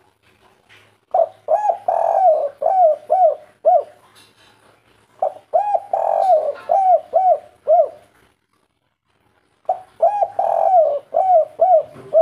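Spotted dove cooing its 'kuk 3' song: three phrases, each a run of short arching coos, with pauses between them.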